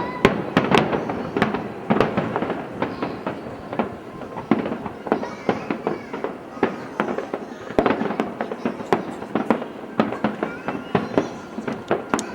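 Aerial fireworks finale: a dense, rapid barrage of shell bursts, several sharp bangs a second without a break.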